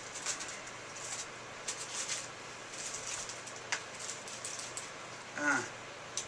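Packaging being handled while a knife works at the tape holding accessories down in the box: scattered short rustles, scrapes and clicks, with a brief pitched squeak about five and a half seconds in.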